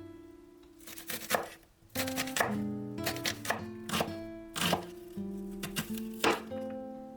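Music on a plucked string instrument: chords struck with sharp, percussive attacks, each ringing and fading, about once a second.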